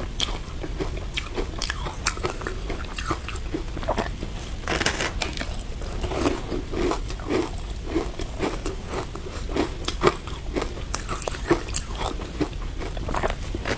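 Biting and chewing through a frozen block of shaved ice coated in matcha powder: a run of irregular crisp crunches and crackles, thickening into steady chewing about halfway through.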